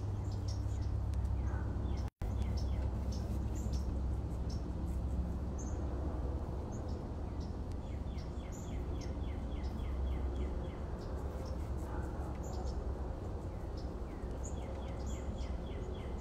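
Birds chirping: scattered short high calls, with a rapid run of ticking notes twice, over a steady low rumble.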